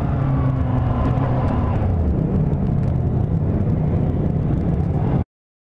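Yamaha YZF600R inline-four sport bike engine running steadily while cruising, heard from the bike with wind noise over it; the sound cuts off suddenly near the end.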